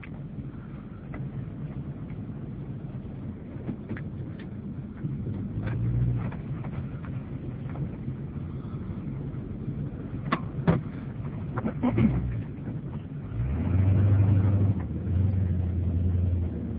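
Tow truck engine running, heard from inside the cab, with a few sharp clicks and rattles. The engine drone gets louder briefly about six seconds in and again for a few seconds near the end.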